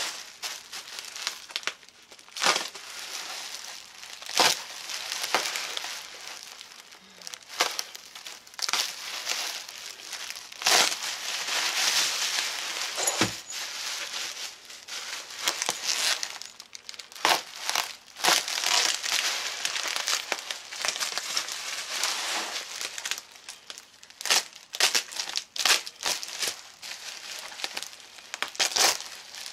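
Bubble wrap crinkling as it is cut and pulled open by hand, with sharp snaps scattered throughout.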